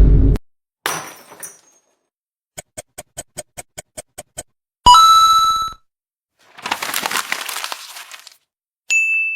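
A run of separate short editing sound effects: a quick series of about a dozen clicks, then a sharp hit that rings on, a crackling, shattering noise, and a single ringing ding near the end.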